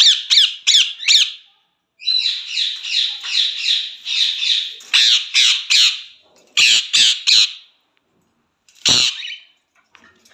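Pet parrot squawking in runs of harsh, repeated calls, about three a second, broken by short pauses, with a last single squawk near the end.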